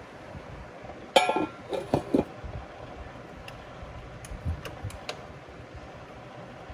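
A metal lid set down on a cooking pot: one loud ringing clank followed by a few lighter clinks as it settles. Several faint ticks come about two seconds later.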